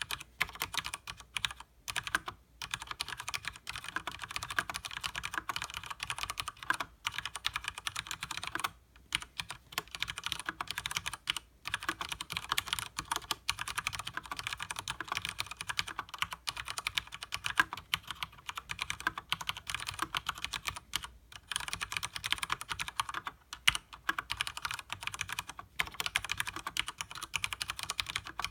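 Fast continuous typing on a Leopold FC900R mechanical keyboard with Cherry MX Speed Silver linear switches and double-shot PBT keycaps: a dense run of keystroke clacks with a few brief pauses.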